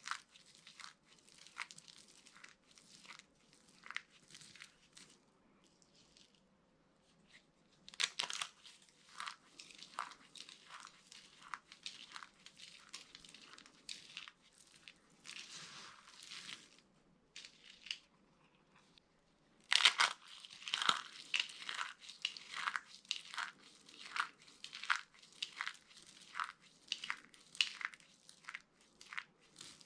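Dry soap cubes and shavings being crushed, a run of sharp crunches and crackles. Louder bursts of crunching begin about eight seconds in and again about twenty seconds in, with brief lulls before each.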